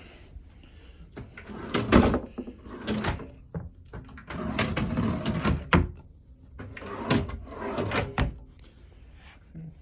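Cabin drawers being slid open and shut, with knocks and scrapes coming in several rounds.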